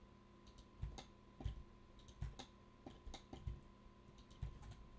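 Computer mouse clicking about ten times, several clicks in close pairs, as objects are selected one by one in Blender. A faint steady hum runs underneath.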